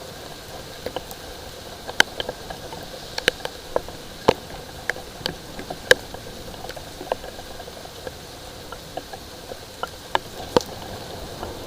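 Scattered raindrops dripping and ticking sharply at irregular intervals over a steady background hiss of light rain.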